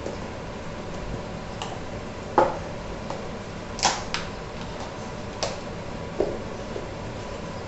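Thick masala gravy cooking in a non-stick kadai: bubbles bursting through the paste in about six sharp, irregular pops over a steady low hiss, the loudest about two and a half seconds in. The masala is being cooked until the oil separates.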